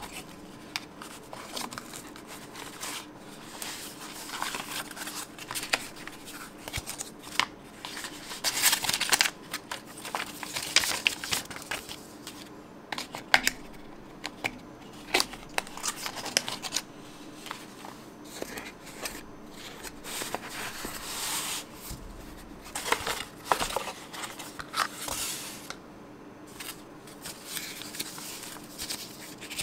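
Paper cards and a cardboard packaging tray being handled: irregular rustling and scraping of card, with light taps and clicks as pieces are lifted out and set down. A faint steady hum runs underneath.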